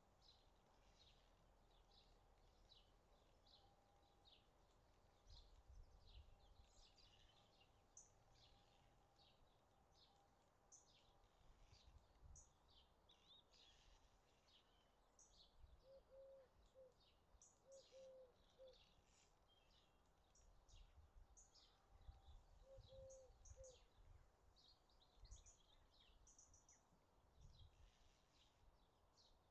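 Faint birdsong: many small birds chirping and trilling throughout, with a few short, low two-note calls from another bird in the second half. Gusts of wind rumble on the microphone now and then.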